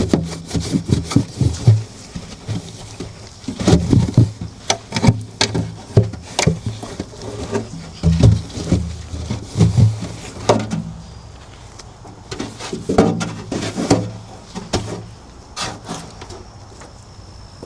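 Irregular knocks, clicks and clatter, as of objects being handled and set down.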